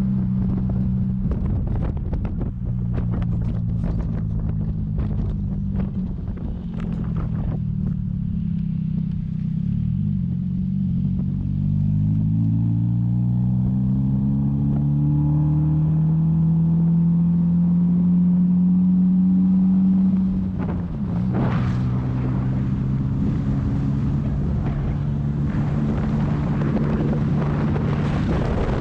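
A vehicle engine running under load, its pitch climbing steadily as it speeds up, then dropping suddenly about two-thirds of the way through before holding steady again. There are scattered sharp clicks or knocks over the first few seconds.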